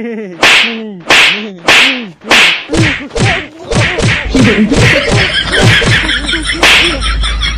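A rapid series of loud slaps, each followed by a short falling tone. They start about one every half second, come faster and closer together from about three seconds in, and end with one more loud crack near the end.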